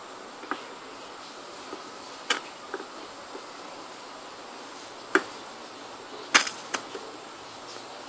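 Plastic feeding syringe clicking and tapping against a small jar as formula is drawn up: about six short sharp clicks, the loudest about five and six and a half seconds in, over a steady faint hiss.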